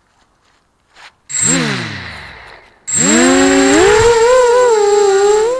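Eachine Racer 250 quadcopter's brushless motors and propellers: a short throttle burst a little over a second in that winds down in pitch, then a spin-up about three seconds in to a loud steady whine whose pitch wavers with the throttle.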